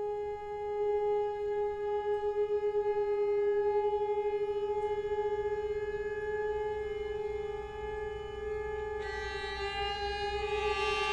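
Background score music: one long held note that wavers in loudness a few seconds in. A brighter, fuller tone joins about nine seconds in.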